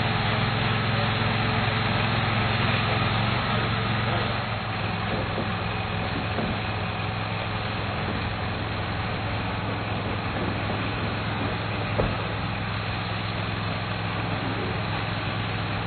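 An engine running steadily at idle, a little quieter from about four seconds in, with a single sharp knock near twelve seconds.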